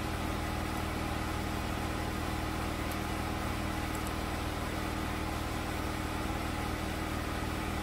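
2010 Nissan Sentra's four-cylinder engine idling steadily, with the newly replaced heater blower motor running.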